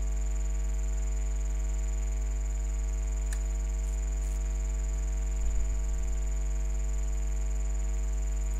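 Steady electrical mains hum and buzz picked up by the recording microphone, with a thin high whine over it, and a single sharp click about three seconds in.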